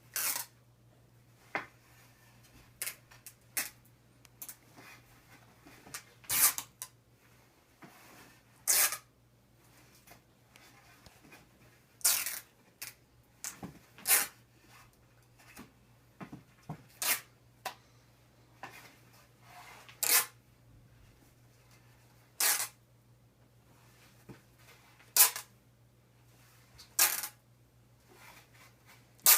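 Cloth hockey tape being peeled off the roll in short pulls as it is wound around a stick's knob, about a dozen pulls spaced irregularly a second or two apart, over a faint steady low hum.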